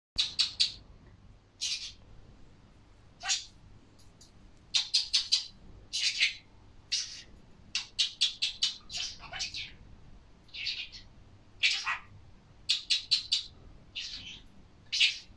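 Budgerigar chattering: short high-pitched chirps and calls in quick clusters, with brief pauses between them.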